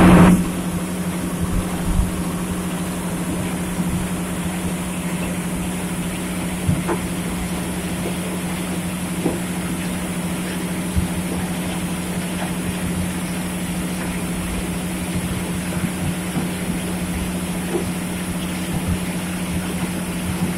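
Heavy diesel earthmoving machinery running steadily at an even pitch, with occasional sharp knocks of rock ore.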